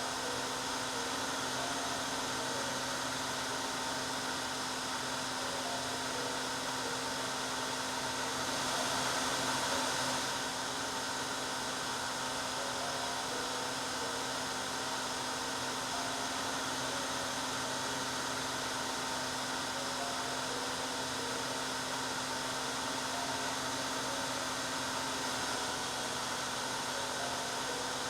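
Hair dryer running steadily: a continuous rush of air over a steady motor hum, swelling slightly for a couple of seconds about eight seconds in.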